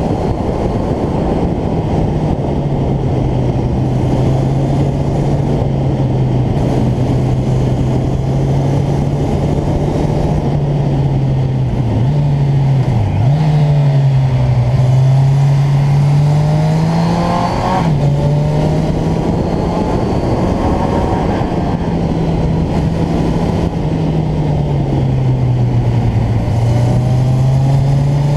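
Motorcycle engine running at speed, its note rising and falling as the throttle opens and closes through the bends, with two quick dips about twelve and thirteen seconds in. Steady wind rush on the microphone sits under the engine.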